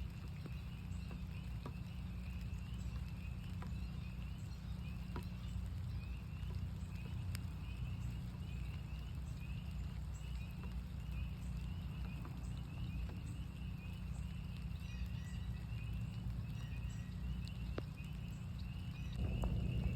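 A chorus of northern spring peepers: many short, high, rising peeps overlapping continuously, over a steady low rumble with scattered sharp ticks. A louder rush of lower sound comes in near the end.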